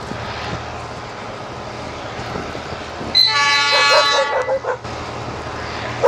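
GT22 diesel-electric locomotive running with a steady low drone as it approaches, then sounding one loud multi-tone air horn blast about three seconds in that lasts about a second and a half and breaks off in a few short stutters.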